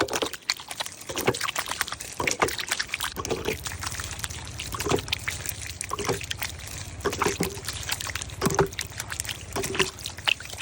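Water pouring and trickling, with irregular short splashes and clicks.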